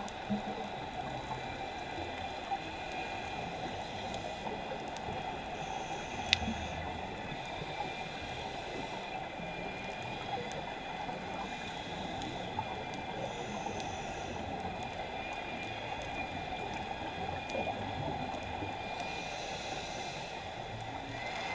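Underwater sound of scuba breathing: a regulator's exhaled bubbles gurgling out every several seconds over a steady crackling hiss, with a few sharp clicks.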